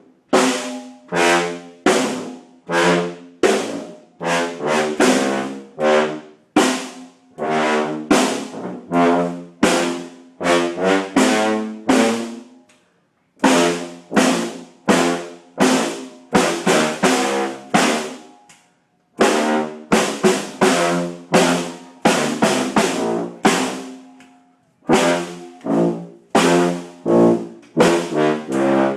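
Tuba playing a loud, bouncy tune of short, detached notes, with a drum struck along with the notes. The playing stops briefly twice before going on.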